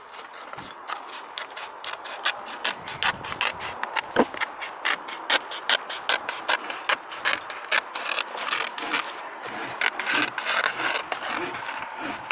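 Roofing underfelt membrane being handled right against the microphone: a quick run of sharp crackling clicks, several a second, then from about two-thirds of the way in a denser rustling and scraping of the sheet.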